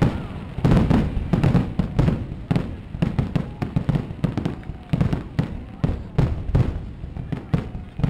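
Aerial firework shells bursting in a dense barrage, a rapid string of bangs several a second.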